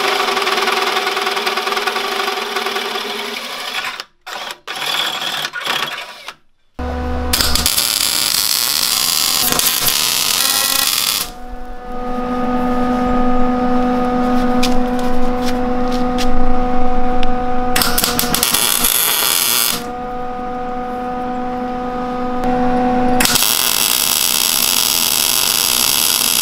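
A hole-saw tube notcher cutting steel tubing at the start. Then a series of short cuts alternates between a steady machine hum with a pitched whine and stretches of MIG welding crackle and hiss, and the welding runs on near the end.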